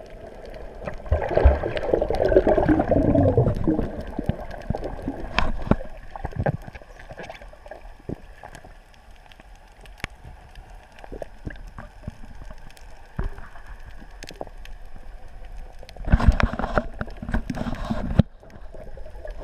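Water gurgling and sloshing, with scattered clicks and knocks and a louder spell near the end.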